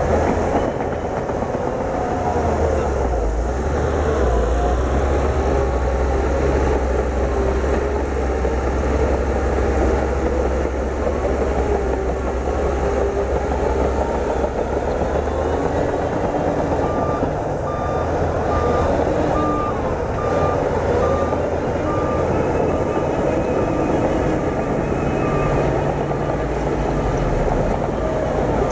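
Heavy diesel engine of a crawler bulldozer working steadily, with a deep rumble. From a little past halfway, a reversing alarm beeps evenly, a little over once a second.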